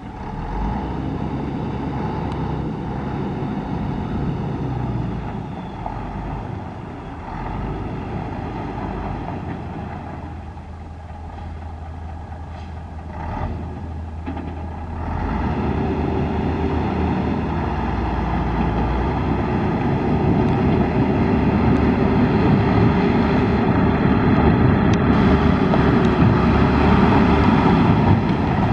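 A 1973 Mack RL600L dump truck's diesel engine running as the truck drives. It gets noticeably louder about halfway through as the truck heads toward the listener.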